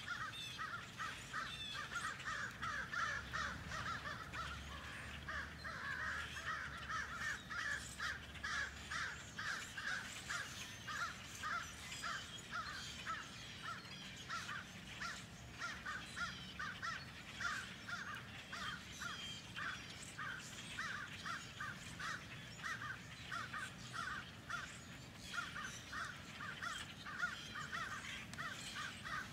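A large flock of blackbirds calling together: a dense, unbroken chatter of many short overlapping calls.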